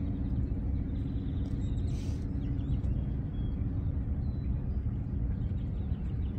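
Steady low rumble of outdoor background noise with a faint hum, faint bird chirps now and then, and a brief hiss about two seconds in.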